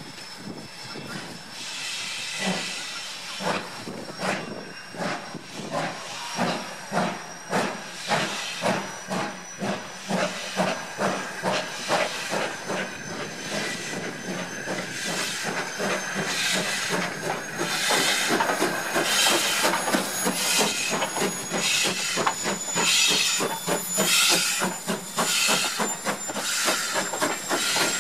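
Steam locomotive pulling a train away from a station: hissing steam and exhaust chuffs that quicken and grow louder as it approaches.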